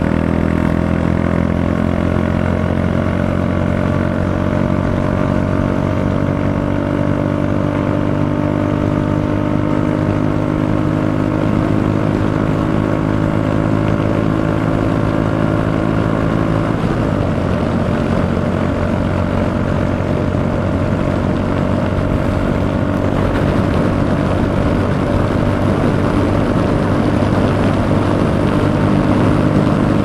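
Royal Enfield Meteor 350's single-cylinder engine pulling under hard acceleration at highway speed, with wind rush on the rider's chest-mounted microphone. The engine note breaks briefly a little past halfway, at the shift from fourth to fifth gear, then pulls on.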